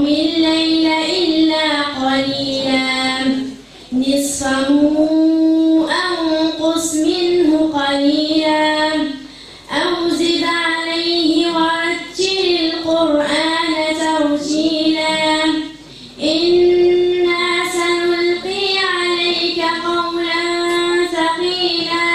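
A girl reciting the Quran in melodic tajweed style: long, drawn-out sung phrases with ornamented held notes, four phrases with brief breaths between them about 4, 10 and 16 seconds in.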